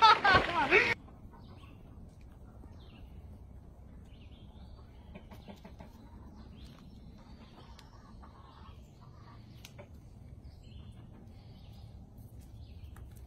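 A loud voice that cuts off about a second in, then a chicken clucking faintly, with scattered faint ticks over a low steady rumble.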